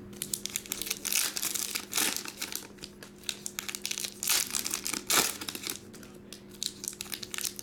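A foil trading-card pack being torn open by hand, its wrapper crinkling and ripping in a run of short, irregular crackles.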